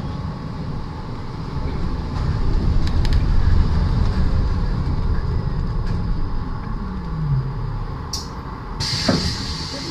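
MAZ 203T70 trolleybus running, heard from inside the cabin: a low rumble, with the electric traction motor's whine falling in pitch as it slows for a stop, and a short hiss near the end.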